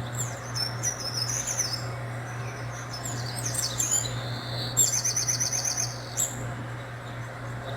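Birds chirping: scattered high-pitched chirps and short whistled glides, with a quick trill of repeated chirps about five seconds in, over a steady low hum.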